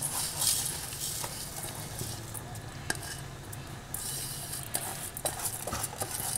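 Soaked rice being tipped and scraped by hand out of a steel bowl into a cooking pot: a hissing pour of wet grains at first, then scraping with a few light clinks of metal on metal.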